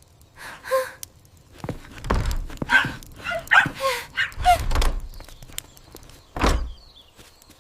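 Cartoon dog barking and yipping in a series of short calls, followed by a single thump near the end.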